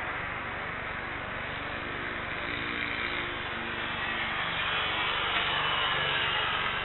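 Boeing 747-8 freighter's four GEnx jet engines spooling up for takeoff, heard from a distance as a steady jet noise that grows louder about four seconds in.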